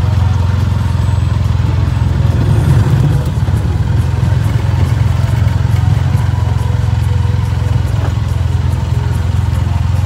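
Arctic Cat's engine running steadily as it drives along a snowy driveway, heard from the driver's seat.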